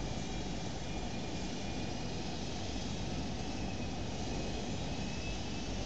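Steady background noise: a constant hiss with a low rumble beneath it, unchanging throughout.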